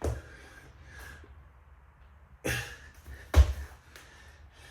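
Thuds of a person doing 3-pump burpees on the floor, with hard breaths between them. The loudest, deepest thud comes about three and a half seconds in.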